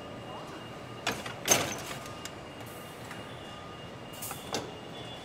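Car assembly line machinery: a steady hum with a faint high whine, broken by a few short sharp mechanical noises, the loudest about one and a half seconds in, with two more near the end.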